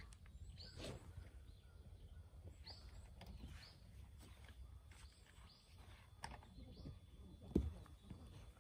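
Faint wind rumble on the microphone with short chirping bird calls scattered throughout, and one soft thud about seven and a half seconds in.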